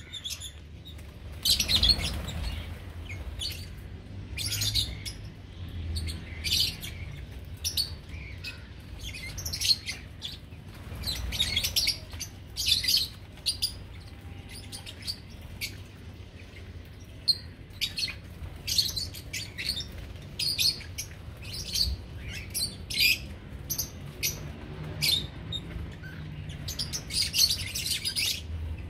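Small pet parrots (love birds) chirping: many short, sharp, high calls in quick irregular runs throughout, over a low steady hum.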